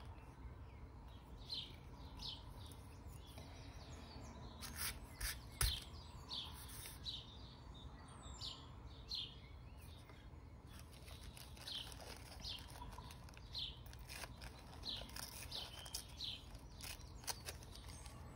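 A bird chirping over and over, short falling chirps about once a second, with light rustling and handling of tissue paper and a sharp tap about five and a half seconds in.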